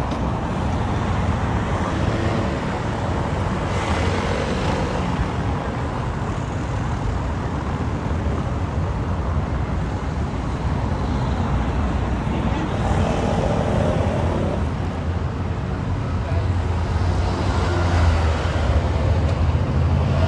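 Street traffic: cars driving past on a cobbled road, a steady low rumble that swells and fades as vehicles go by.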